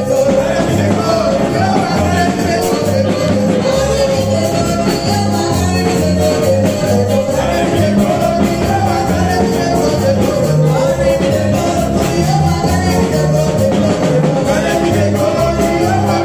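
Upbeat gospel music with a steady beat and a bass line that moves in steps.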